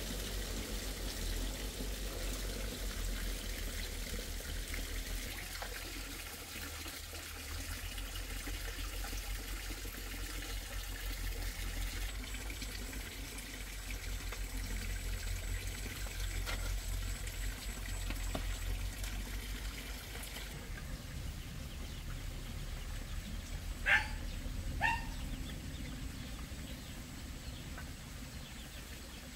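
Steady trickling, running water. Near the end, two short animal calls, one right after the other.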